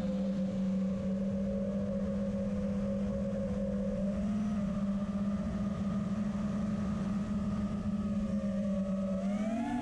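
Quadcopter's four DYS SE2205 2300KV brushless motors and props whining steadily in flight, recorded by the onboard camera. The pitch climbs with a burst of throttle near the end, then drops back.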